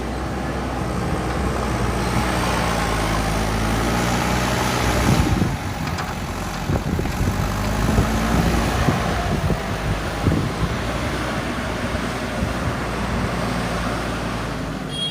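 JCB 3DX backhoe loader's diesel engine running under load, its pitch rising and falling as the hydraulics work, with some knocks from the digging.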